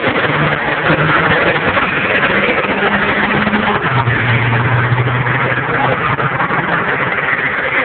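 Diesel pickup trucks racing at full throttle down a drag strip: a steady low engine drone under a loud rushing noise, its pitch stepping down about four seconds in.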